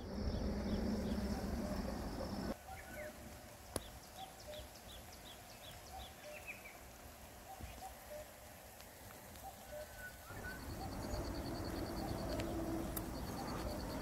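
Small songbirds chirping with short, repeated high notes over a low, rumbling outdoor background. Near the end a rapid, high-pitched trill comes twice.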